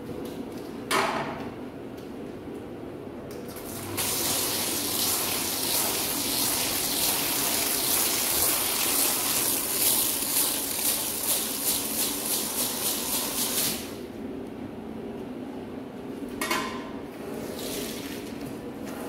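Water from a hose spraying onto a wet, soaped carpet to rinse it: a loud, steady hiss from about four seconds in that stops about ten seconds later, with short spurts about a second in and near the end.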